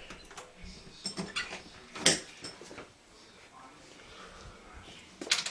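Handling noises while going through a door: scattered short clicks and knocks, with one sharp knock about two seconds in and a quick cluster of knocks near the end.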